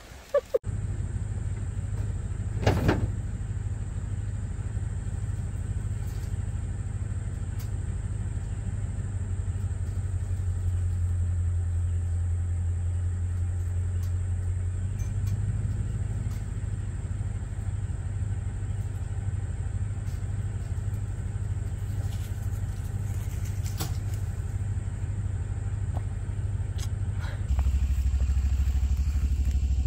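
A motor vehicle engine running steadily at low pitch, with a sharp knock or clatter about three seconds in and a couple more later on. Near the end the engine sound drops lower and gets louder.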